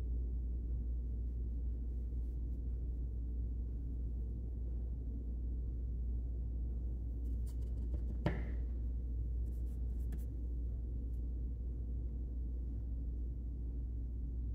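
Steady low hum of room tone with a single sharp tap about eight seconds in, as a hand handles a plastic paint bottle on the table, with a few faint light ticks around it.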